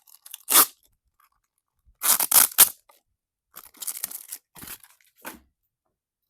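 Tape on a toy's packaging being slit and torn in several short ripping bursts, loudest about two seconds in, followed by smaller scratchy tearing sounds.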